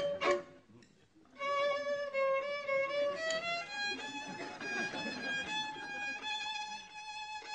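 Solo violin played close by: a slow melody of long held notes that steps upward. Near the start the playing breaks off with a short click and about a second of quiet, then resumes.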